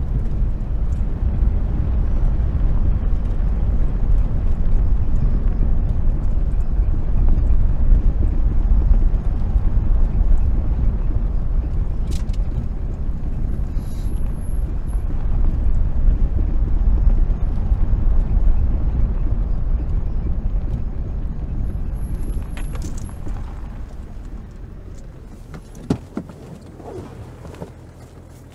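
Car cabin rumble of a car driving, a steady low noise of engine and tyres that dies away over the last few seconds as the car slows. Two sharp knocks sound near the end.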